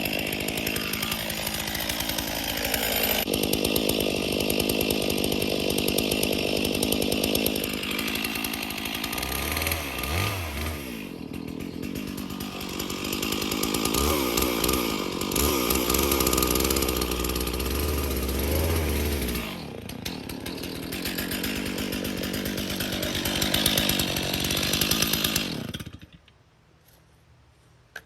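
Stihl chainsaw cutting into a cedar trunk to make the felling undercut, its engine speed rising and falling as the chain loads up in the wood. The saw cuts off suddenly near the end.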